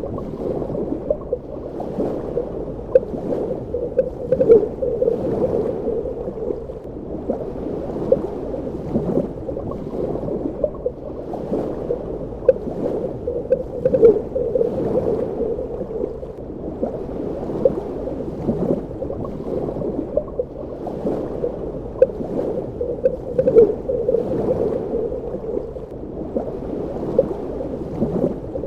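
Underwater ambience: a steady, muffled water rush with frequent small bubbling pops and gurgles scattered irregularly through it.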